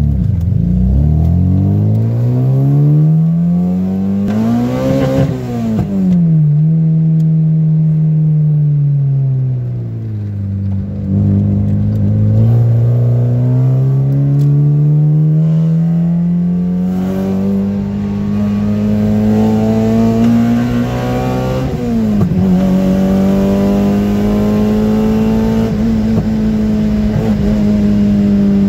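Toyota Corolla GT-S with a swapped 4A-GE 20-valve blacktop four-cylinder engine, heard from inside the cabin while being driven. The engine revs up through a gear and drops in pitch at a shift about five seconds in, then eases off. It pulls up steadily again to another quick shift a little past twenty seconds and then holds an even drone.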